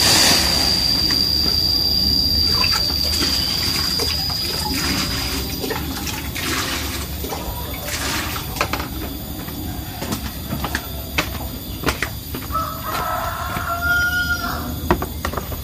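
Water running and splashing into a plastic basin, loudest at first and then easing off. A steady high whine sounds over it until about five seconds in.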